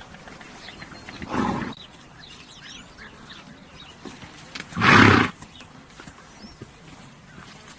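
Horse blowing out hard through its nostrils twice, about three seconds apart, the second louder; small birds chirp faintly between them.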